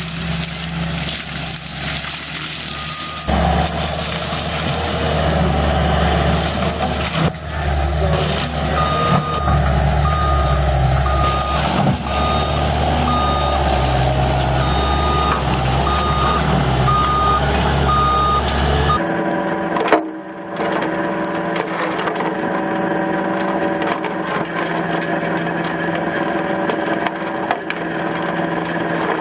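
Heavy machine's diesel engine running steadily while its reversing alarm beeps about once a second. Near the end of the beeping the sound cuts abruptly to a different machine running steadily.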